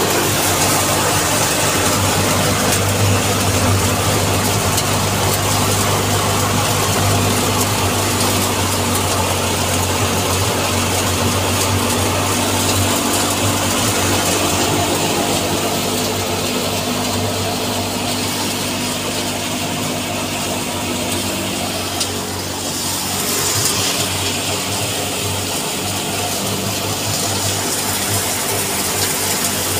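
Belt-driven thresher threshing canola: a steady, loud engine hum under the dense rushing noise of the machine beating the stalks.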